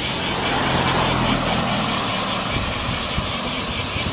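Street traffic: a car passing on the road, its engine and tyre noise swelling through the middle. A rapid, even, high-pitched pulsing buzz goes on underneath.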